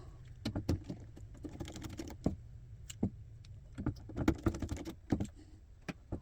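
Irregular small clicks and knocks of cables and connectors being handled, over a steady low hum.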